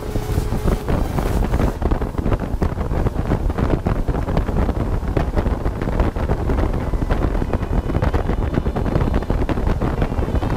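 Wind buffeting the microphone over the steady running of a motorboat at speed, with the rush of its hull through the water.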